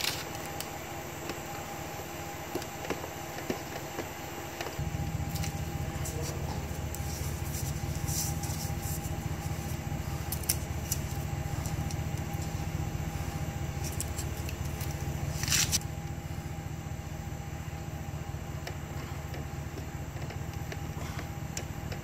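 A machine's steady low rumble starts suddenly about five seconds in and keeps going, over a constant hum. Scattered small clicks and crackles come from hands pressing butyl tape around the shore power cord opening, with a louder crackle just past the middle.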